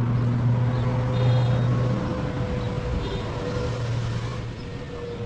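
An engine running steadily with a low hum, growing quieter about two seconds in and again near the end.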